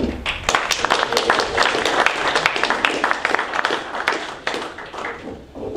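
A small audience clapping its hands in applause. It starts about half a second in and dies away near the end.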